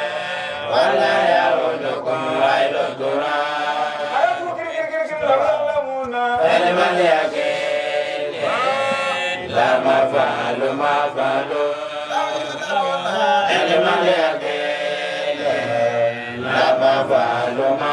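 Male chanting: a continuous melodic vocal chant with long held, bending notes, in the style of a Muslim religious chant.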